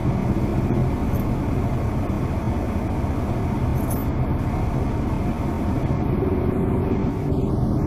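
Car engine and road noise heard from inside the cabin: a steady low rumble with a constant low hum.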